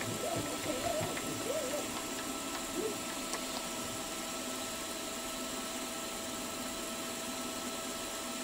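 Milling machine spindle running steadily with an end mill in the chuck, a constant hum with a steady whine over it. A wavering sound and a few faint ticks come in the first two seconds, then only the even running.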